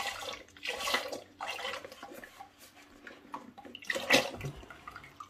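Whole liquid cream glugging out of a carton into a stainless-steel saucepan of milk, in about four separate splashing pours.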